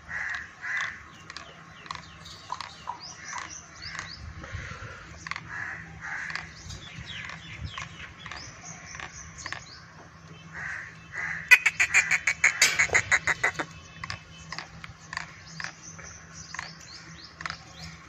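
Birds calling, with repeated short caws and chirps, and a louder rapid pulsing call lasting about two seconds near the middle.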